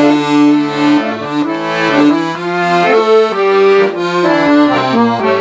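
Accordion playing a trot melody in sustained chords over a bass line, on a low, thick-sounding register switched in for the second verse's intro.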